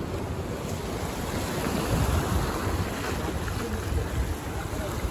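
Sea waves washing, with wind rumbling on the microphone.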